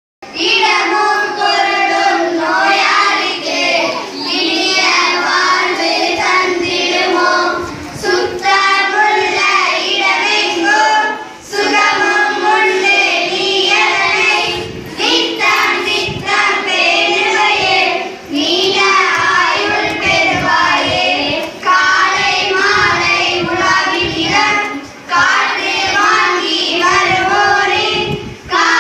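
A group of children singing together, in phrases of about three to four seconds with short breaks between them.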